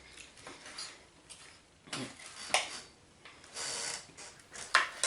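Knife and fork clinking and scraping on a plate during a meal: scattered light clicks and knocks, with one short scrape about three and a half seconds in.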